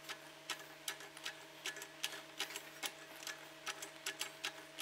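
Bead roller with a stepping die turning as a sheet-metal panel is fed through, giving faint irregular clicks, about three or four a second, over a steady low hum.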